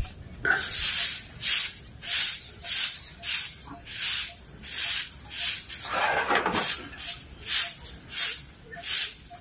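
Short bundled hand broom sweeping a packed-earth courtyard: a regular run of brisk swishing strokes, about one and a half a second, with one longer, fuller sweep a little past the middle.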